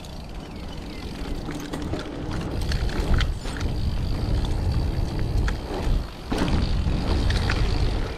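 Mountain bike rolling fast down a gravel trail: wind rushing over the camera mic and tyres crunching on the gravel, with scattered rattling knocks from the bike over bumps. The rush builds about a second in and drops briefly about six seconds in.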